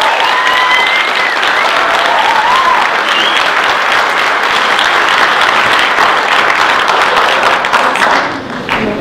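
Audience applauding, with a few high gliding calls over the clapping, dying away near the end.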